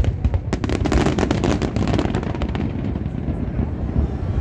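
Fireworks display: a rapid run of crackling bangs and pops over a low rumble, the bangs thinning out about halfway through and leaving mostly the rumble.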